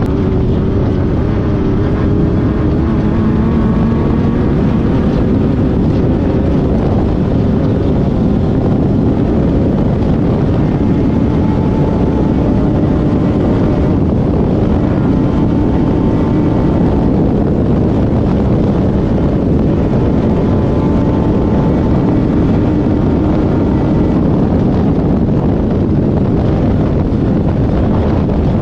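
Off-road race car's engine running hard at speed, heard from inside the car together with wind and rough-terrain noise. The engine note shifts up and down as the revs change.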